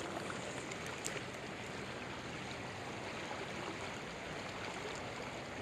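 Fast-flowing creek water rushing steadily, with a faint click about a second in.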